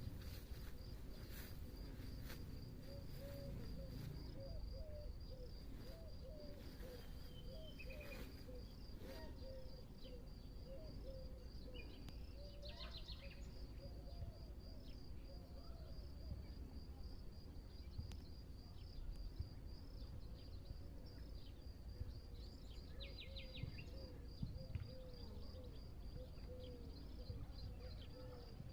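Forest ambience: a steady, high insect trill runs throughout, with many short low chirping calls and two brief bird trills, one about halfway through and one near the end, over a low rumble.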